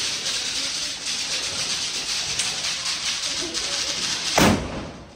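A lit Diwali firework hissing steadily as it burns for about four seconds, then a sharp bang.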